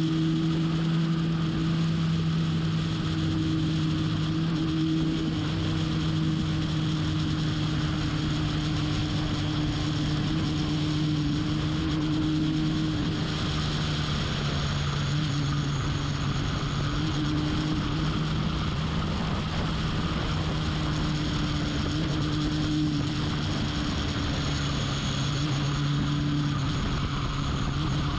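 Race car engine running at a steady, unchanging pitch for the whole stretch, with an even rush of noise over it.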